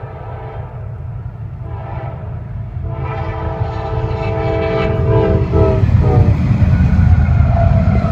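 Norfolk Southern locomotive air horn sounding a chord in several blasts: a short one about two seconds in, then a long blast and a brief final one. Under it the low rumble of the approaching train grows steadily louder.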